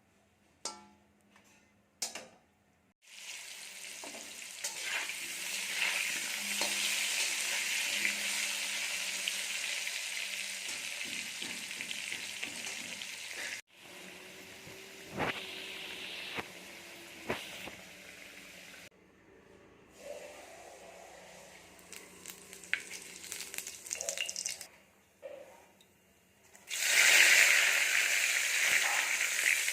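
Food sizzling in hot oil in a pan, with the scrape and clink of stirring. It comes in several short takes that cut off suddenly, with brief quiet gaps, and the sizzle is loudest near the end.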